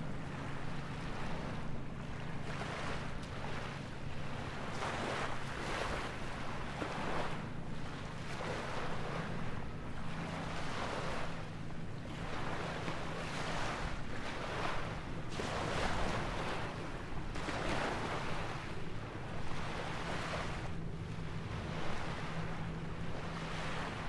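Small waves washing ashore, a surge of wash about once a second, over a low steady hum.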